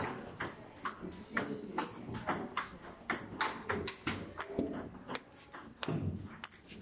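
Table tennis balls clicking off bats and tables in irregular, quick hits from more than one table, about four a second, over faint background chatter.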